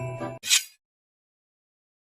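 The last notes of a mobile phone ringtone melody fade out in the first half-second, followed by a brief swish of noise and then dead silence.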